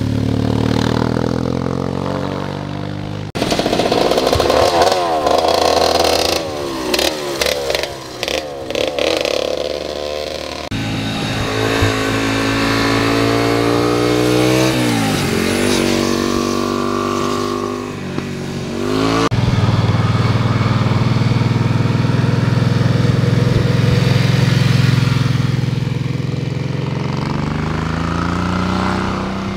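Four motorcycles ride past in turn through a tight bend. Each engine's note rises and falls as the bike accelerates and goes by. The sound cuts abruptly from one bike to the next.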